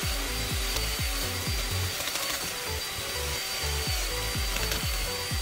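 Cordless drill spinning a wire wheel brush against a small screw held in locking pliers: a steady high motor whine with a rasping hiss of wire bristles on metal. Background music with a heavy bass beat runs underneath.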